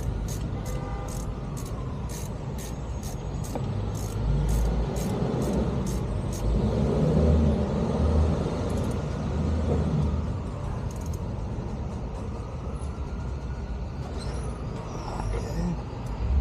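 A motor vehicle going past, its low rumble swelling to its loudest around the middle and then fading. Rapid light ticking in the first few seconds.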